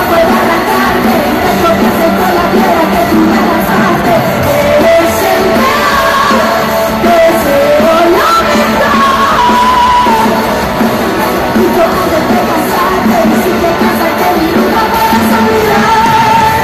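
Live pop music played loud over an arena PA, heard from the audience: a full band with a sung melody, and crowd voices yelling along.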